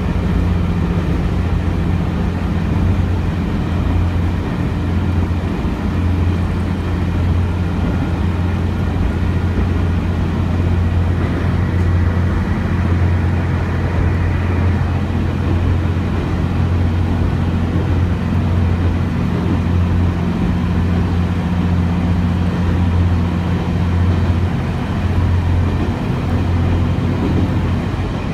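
Cabin noise of a KiHa 32 diesel railcar: the engine hums steadily with an even low drone.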